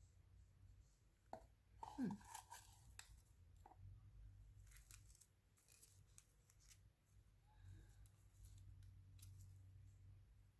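Quiet, scattered snips and rustles of paper being handled and cut with scissors, a small cluster of them about two seconds in.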